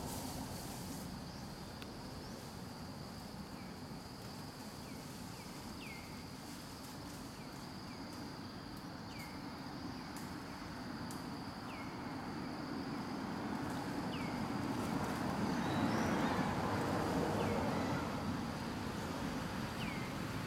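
Tropical forest ambience: a steady high-pitched insect drone, with a short falling chirp repeating every two seconds or so. A broad rustling noise swells about three quarters of the way through.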